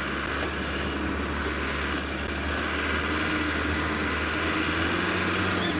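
Safari game-drive vehicle's engine running steadily under load while driving fast over bumpy, rocky ground, with a few faint knocks and rattles from the vehicle.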